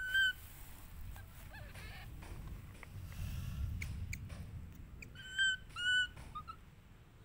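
Baby macaque giving short, high, steady-pitched calls: one at the start and two close together about five and six seconds in, with a few softer chirps between.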